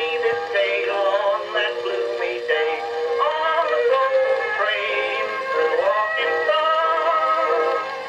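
An acoustic-era Edison Blue Amberol cylinder recording playing back: a male voice sings with instrumental accompaniment. The sound is thin, with little bass or treble.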